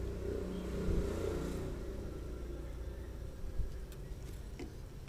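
A motor vehicle engine running in the background, a low hum that grows a little louder about a second in and then slowly fades.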